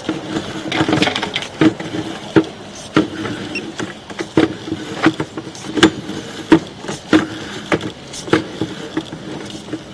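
Sewer inspection camera's push cable being pulled back onto its reel, with a regular knock or click about every two thirds of a second.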